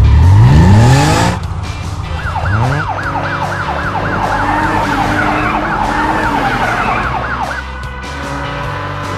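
A cartoon vehicle's engine revs up sharply at the start and again about two seconds in. Then a siren warbles rapidly up and down, about four cycles a second, for some five seconds and stops near the end.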